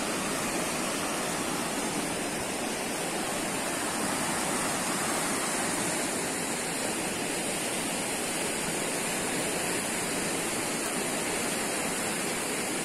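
River water rushing over a low rocky ledge and through white-water rapids: a steady, even rush of water.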